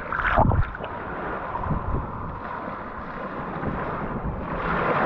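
Small waves washing up on a sandy beach, with wind buffeting the microphone. The wash swells near the start and again toward the end.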